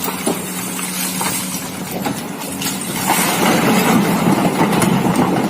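Excavator engine running steadily, with clanking and rattling over it.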